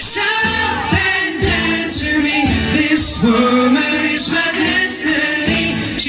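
A live band playing a song with sung vocals over a steady beat.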